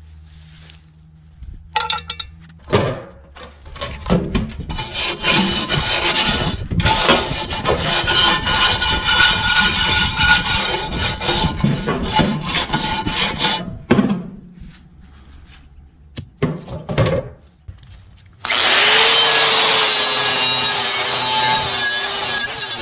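Scraping and rubbing on a rusty cast-iron Dutch oven lid for about ten seconds, then a few knocks. Near the end an angle grinder with a wire wheel starts and runs steadily, stripping rust off the cast-iron lid; this is the loudest sound.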